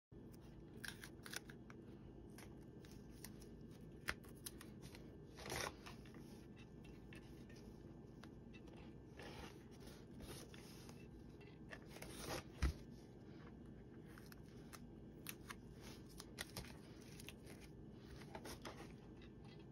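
Faint crafting handling noises: cardboard, painter's tape and thin light wires rustling and tapping under the hands, with scattered small clicks and one sharper click about twelve seconds in, over a low steady room hum.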